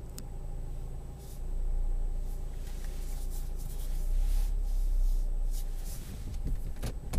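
Car engine idling with the car standing still, heard inside the cabin: a steady low rumble with a faint hum above it and a few light clicks.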